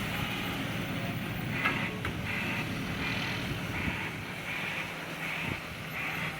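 Garbage truck's diesel engine running with an exhaust leak, a steady low engine sound with a higher noisy pulse coming and going about every two-thirds of a second.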